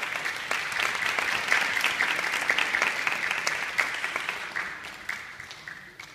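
Audience applauding, the clapping thinning and fading out over the last two seconds.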